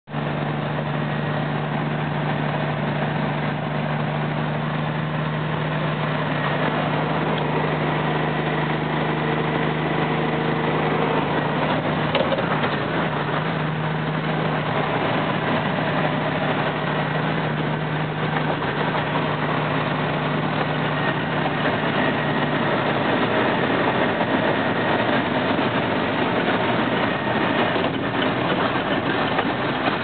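Western Star log truck driving on a gravel road, heard from inside the cab: the diesel engine runs steadily under the rumble of tyres on gravel. A steady low hum in the engine sound drops away a little past two-thirds through.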